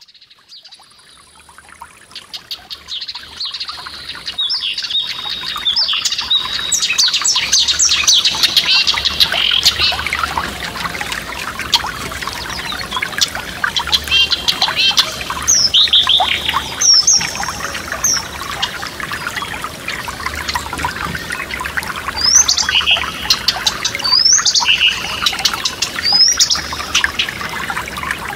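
A forest stream babbling steadily, fading in over the first few seconds, with songbirds singing several short, rising and falling phrases over it.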